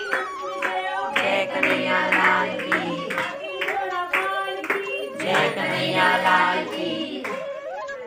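Devotional song sung with steady rhythmic hand-clapping over a held note. Near the end the singing and clapping stop and give way to a different, gliding melody.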